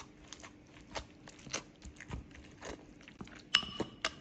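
Small clicks and crackles of a plastic bottle being opened and its contents poured into a food bowl, with a short ringing clink about three and a half seconds in.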